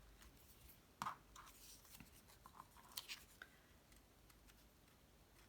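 Faint handling of cardstock pieces: a few soft taps and rustles, the clearest about a second in and about three seconds in, over near silence.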